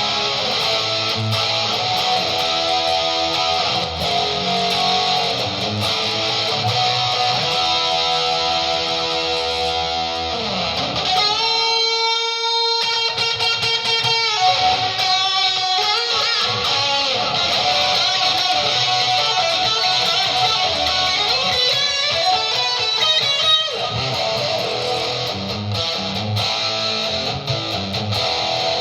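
Electric guitar playing rock chord parts, then switching to a long held lead note about eleven seconds in, followed by sliding single-note lead lines, and back to chords near the end.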